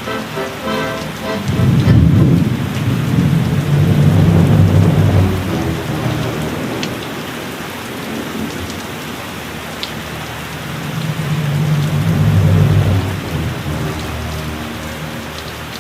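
Steady rain with two long rolls of thunder, the first about two seconds in and the second about eleven seconds in.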